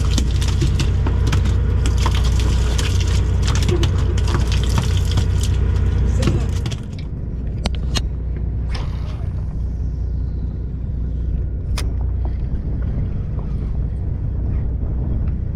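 Boat engine idling with a steady low hum. Over it, for about the first six and a half seconds, dense crackling and rustling handling noise that then stops, followed by a few sharp single clicks.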